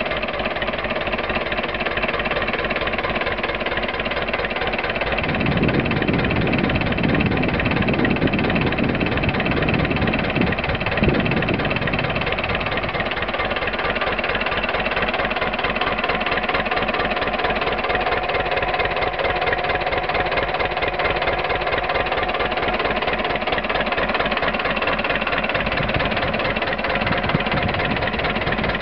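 A 1957 Hanomag R19 tractor's two-cylinder diesel engine idling with a rapid, even beat. For several seconds, about a fifth of the way in, the sound turns deeper and a little louder.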